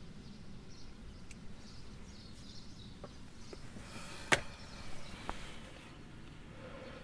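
Quiet ambience with faint high chirps and a few small ticks, then one sharp click a little past four seconds in, followed by a brief rustle.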